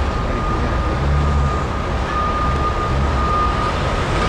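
Boeing 777's twin jet engines at takeoff thrust as the airliner climbs away just after lift-off: a loud, steady rumble with a high, even whine running over it.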